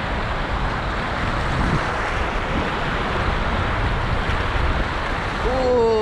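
Sea surf washing against a rocky shore, with wind buffeting the microphone. Near the end a person's voice calls out briefly.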